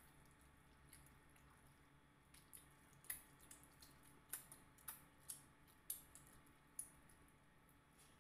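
Quiet, close eating noises of people eating rice and fish by hand: wet chewing, lip smacks and finger-licking, heard as a scatter of short sharp clicks, a few louder ones in the middle, over a faint low hum.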